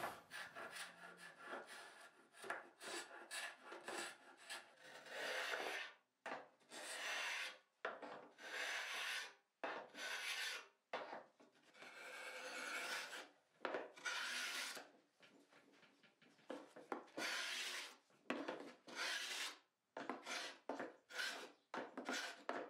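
A hand paint scraper drawn over and over across a wooden cabinet, scraping off the old, brittle shellac finish. The strokes are dry and rasping, each lasting up to about a second, with short pauses between them.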